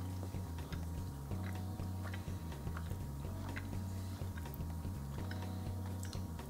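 Soft, wet chewing of a stretchy peach mochi, with faint mouth clicks now and then, over quiet background music with a low bass line.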